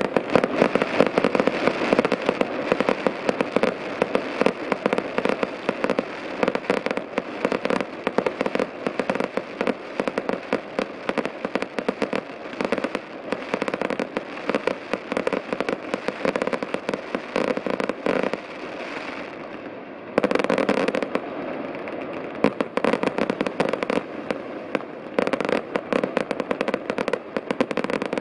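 Aerial fireworks crackling and popping densely and without pause, many small reports overlapping. There is a brief lull a little over two-thirds of the way through, then the crackling picks up again.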